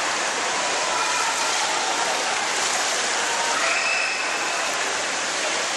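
Steady rushing and lapping of swimming-pool water running into the overflow gutter, an even hiss with no breaks.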